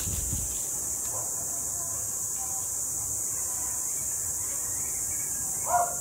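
Steady, high-pitched drone of insects in the undergrowth, with a brief low thump at the start and a short, louder sound near the end.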